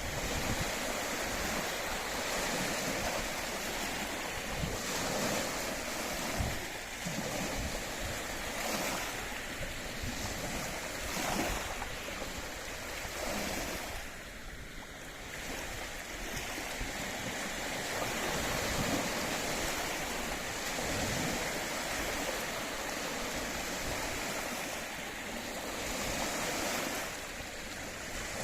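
Small waves on Loch Ness washing in, with irregular swells, and wind buffeting the microphone. The wash eases briefly about halfway through.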